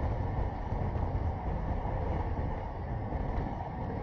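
Steady low rumble of wind across a handlebar-mounted action camera's microphone and the road bike's tyres rolling on asphalt while riding.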